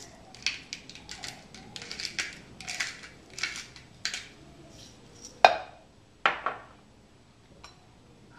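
Kitchenware being handled during food preparation: quick scratchy strokes, about three a second, for roughly four seconds, then two sharp knocks.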